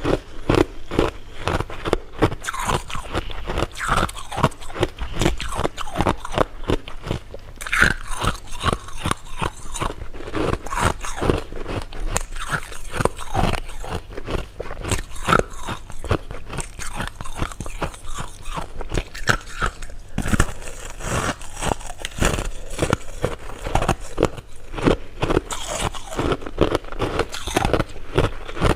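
Close-miked eating: continuous crunching and chewing of hard candy, with many quick crunches packed closely together throughout.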